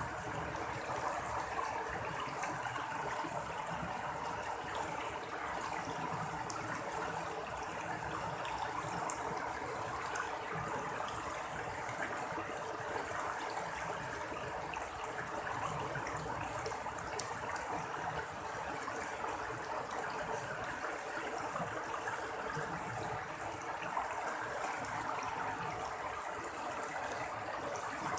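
Running water splashing and trickling steadily, as in a small stream.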